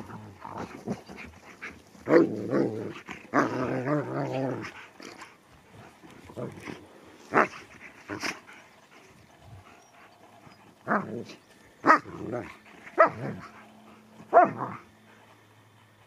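Two dogs play-fighting, growling in low rough rumbles for the first few seconds, then giving about six short, sharp barks spread through the second half.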